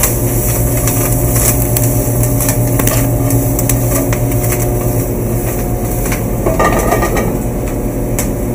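Steady mechanical hum of a commercial kitchen's ventilation hood running over the gas range, with a few light knocks from a sauté pan being tossed and set down on the burner grate.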